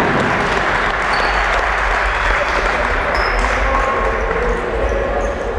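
Indoor handball-hall ambience: a steady din of spectators' voices, with several brief high squeaks of players' shoes on the wooden court.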